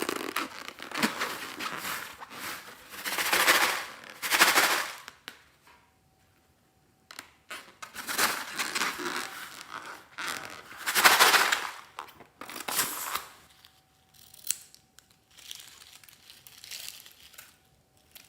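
Slime and a rubber balloon being squeezed and handled, giving irregular bursts of wet crackling and crinkling, each about a second long, loudest near the start and again in the middle.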